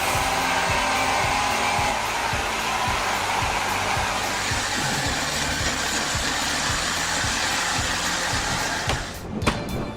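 Steady, loud rushing machine noise. About nine seconds in it gives way to a run of sharp knocks.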